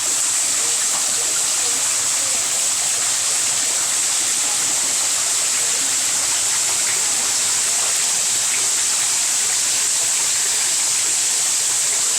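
Small garden waterfall running: a steady, even rush of falling and splashing water.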